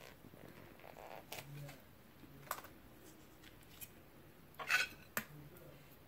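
Quiet close-up eating sounds: fried bread being torn and chewed, with a few small clicks. A short, louder noise comes about three-quarters of the way in.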